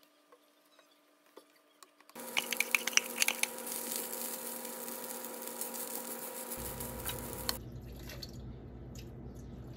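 Rice sizzling in a hot frying pan as a wooden spatula stirs and scrapes it, a loud even hiss with many small clicks over a steady hum, starting suddenly a couple of seconds in. It cuts off sharply past the middle, and liquid is then poured into a blender jar over a low rumble.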